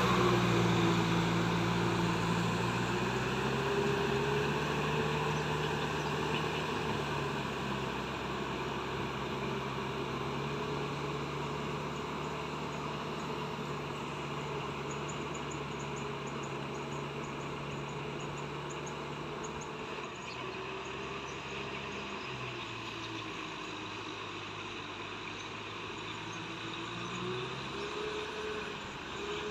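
Kubota M6040SU tractor's four-cylinder diesel engine running steadily under load while its rear rotavator churns mud and water, growing fainter as the tractor moves away. About three-quarters of the way through, the engine note dips, then rises again.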